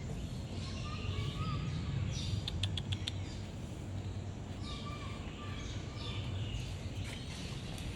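Several birds calling and chirping, with a quick run of sharp clicks about two and a half seconds in, over a steady low rumble.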